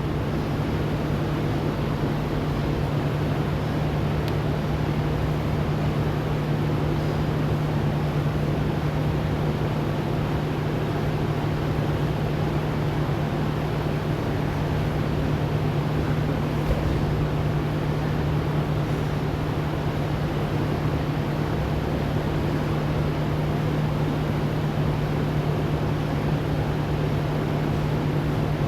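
A steady mechanical hum with one constant low tone, even in level throughout, with no clear beat or separate knocks.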